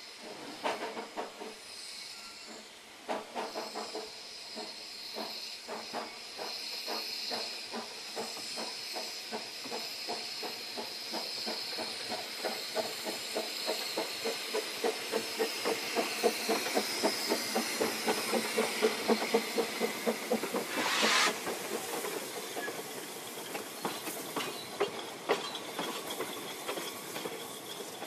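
Narrow-gauge steam locomotives pulling a train away: exhaust chuffs that start slow and quicken, over a steady hiss of escaping steam from the cylinders. A short loud burst of steam comes about three quarters of the way through, and the carriages' wheels clatter on the rails as they pass near the end.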